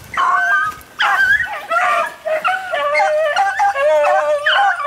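Rabbit-hunting dogs yelping and howling excitedly at a freshly shot rabbit. Several wavering calls overlap, with one long drawn-out howl in the middle.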